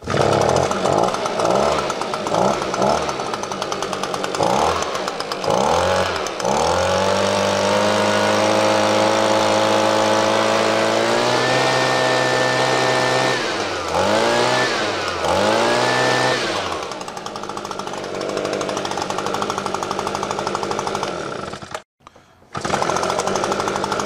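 Echo PB-250 leaf blower's small two-stroke engine running after a carburettor rebuild and new fuel lines and primer bulb. The throttle is blipped up and down again and again, then held at high revs for several seconds and stepped higher still, before a few more blips and a drop to idle. It runs smoothly and sounds really good.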